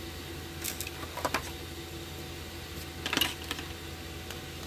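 Light clicks and taps of a screwdriver and small metal parts being handled as the bottom screws of a Makita backpack leaf blower's carburetor are taken out: a few scattered clicks, with a short cluster about three seconds in, over a faint steady hum.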